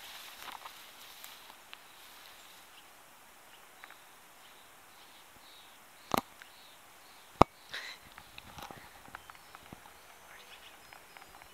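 Quiet footsteps and rustling through dry grass and brush. About halfway through come two sharp clicks a little over a second apart, the second the loudest.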